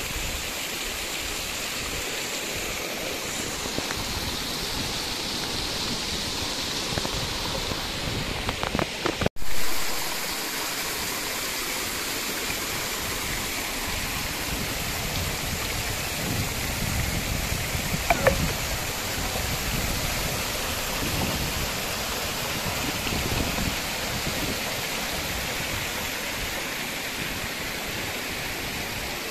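Water running over a low stone ledge and splashing into a shallow rocky pool, a steady rushing sound. It breaks off for an instant about nine seconds in and comes back louder.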